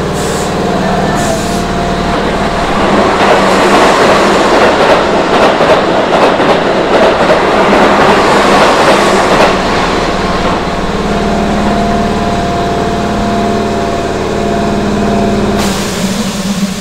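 A Keihan limited express train passes through the station at speed: loud wheel and running noise swells from about three seconds in and fades by about ten seconds. Under it and after it, the stopped commuter train's underfloor machinery hums steadily, and the hum stops abruptly near the end.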